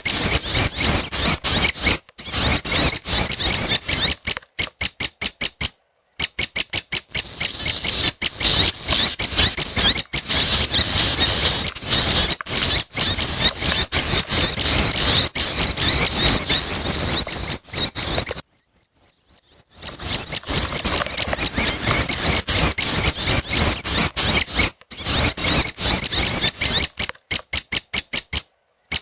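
Young prenjak (prinia) begging calls: rapid, high, squeaky chattering notes in dense runs, broken by short pauses and one longer pause about two-thirds of the way through.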